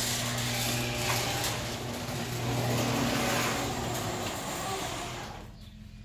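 Electric garage door opener running as an overhead sectional door rolls up its tracks: a steady motor hum with rattling roller noise, stopping suddenly about five and a half seconds in as the door reaches fully open.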